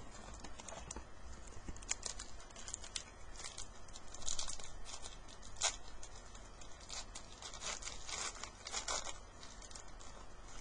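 Hockey card pack wrapper being torn open and crinkled, with trading cards rustling in the hands: a run of short scratchy crackles and rustles, the sharpest about halfway through.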